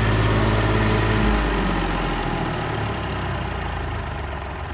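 Massey Ferguson tractor engine running with a steady low drone. About a second in the note shifts, and then the sound slowly fades.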